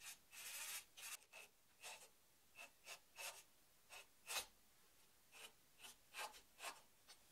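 Faint cordless driver run in about a dozen short, scratchy bursts, turning a thin wood screw through a washer and plywood pad into pine to draw a glued corner joint tight; the loudest burst comes about four and a half seconds in.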